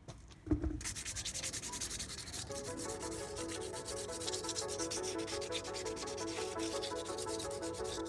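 300-grit sandpaper rubbed by hand over a flaking painted steel wheel rim, quick scratchy back-and-forth strokes that start just under a second in and keep on steadily: sanding down the old paint before priming. Background music comes in under it a couple of seconds in.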